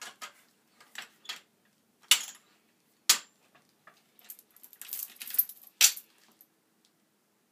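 Metal clicks and clanks as a threaded black iron pipe is released from a tripod pipe vise and lifted out. A string of separate knocks comes first, then a short rattling stretch about five seconds in, ending in a louder clank.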